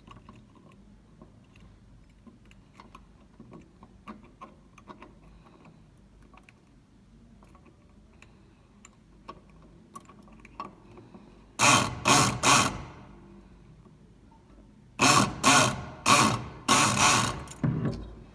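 Electric pick gun being worked in a mailbox lock: faint metallic clicks of the tools in the keyway, then three short loud bursts of buzzing rattle about twelve seconds in, and a run of five or so more a few seconds later.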